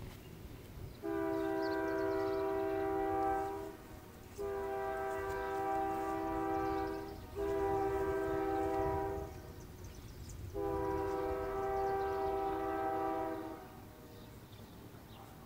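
Diesel locomotive's multi-chime air horn sounding the grade-crossing signal: two long blasts, a shorter one, then a final long one.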